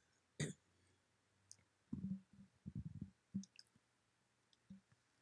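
Near silence, broken by a few faint clicks and brief soft low sounds.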